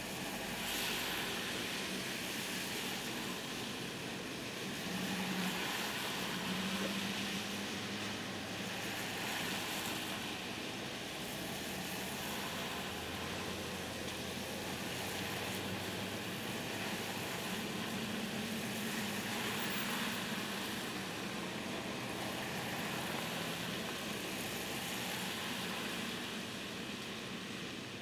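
Road traffic on wet pavement: a steady hiss of tyres on the wet road with a faint engine hum, swelling a little as vehicles go by.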